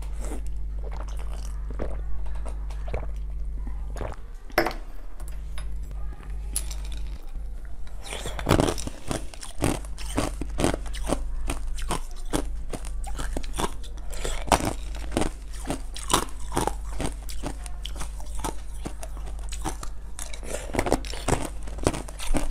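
Crunching and chewing of green basil-seed ice, many sharp bites that come thick and fast after about eight seconds. A steady low hum runs underneath.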